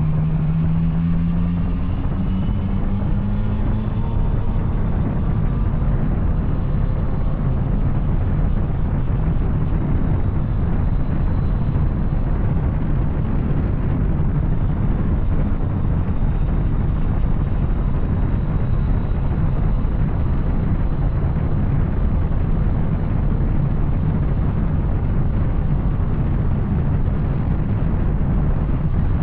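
Yamaha Tracer 900's three-cylinder engine through an Arrow exhaust, the motorcycle riding under way. The engine note climbs in the first few seconds, then holds a steady drone with road and wind noise.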